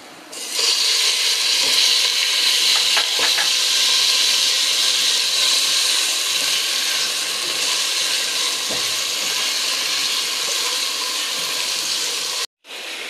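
Raw chicken pieces dropped into hot oil and garlic in a nonstick pot, setting off a sudden loud sizzle about half a second in that holds steady as a spatula stirs them. The sizzle cuts out briefly near the end and comes back quieter.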